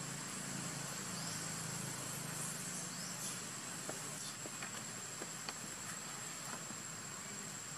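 Outdoor ambience: a steady high-pitched insect drone over a low hum, with a few faint clicks in the middle.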